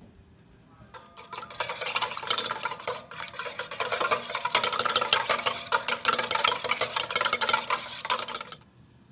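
Wire whisk beating raw egg whites in a stainless steel bowl by hand, a fast continuous clatter of the wires against the metal. It starts about a second in and stops abruptly near the end.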